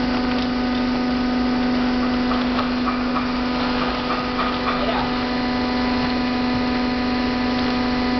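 Bridge die-cutting press running idle, a steady electric hum with no strokes or changes.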